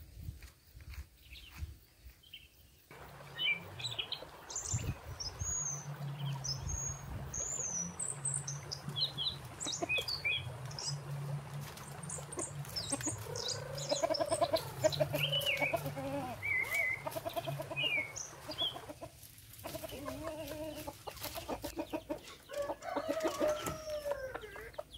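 Chickens clucking, louder in the second half, with small birds chirping high above them and a low steady hum underneath.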